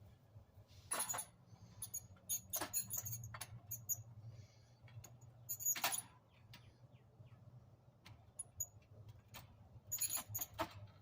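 Metal tools clicking and scraping as a screwdriver pries at a stuck part on a clothes dryer's heating element. There are a handful of sharp clicks and clatters, a cluster of them near the end, over a faint steady low hum.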